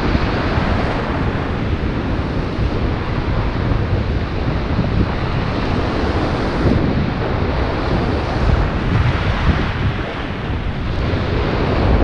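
Wind buffeting the microphone with a low rumble, over the steady rush of breaking surf.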